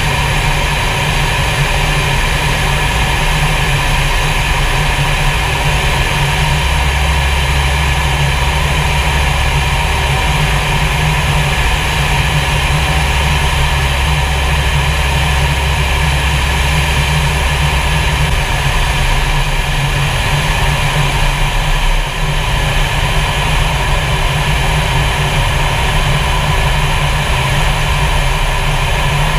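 Fighter jet in flight heard from inside the cockpit: a loud, steady drone of engine and rushing air. A low hum under it grows stronger for about ten seconds in the middle.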